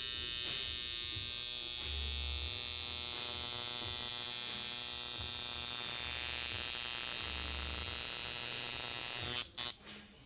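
Coil tattoo machine buzzing steadily while lining a tattoo, then cutting off suddenly near the end.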